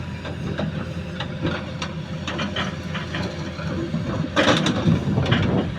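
Excavator's diesel engine running steadily, with scattered knocks and a louder clatter about four and a half seconds in.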